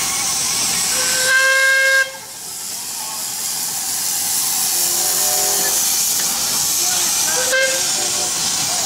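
Miniature live-steam locomotives hissing steam as they pass, with a short steam whistle blast about a second in that cuts off sharply, and a brief toot near the end.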